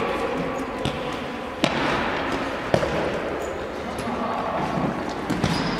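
Futsal ball being kicked and bouncing on an indoor court: a few sharp knocks, the loudest two about a second apart, over a steady background of voices.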